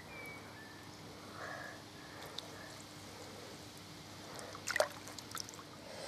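Faint water sloshing and lapping as a carp is worked free from a landing net at the water's edge, with one sharper splash nearly five seconds in.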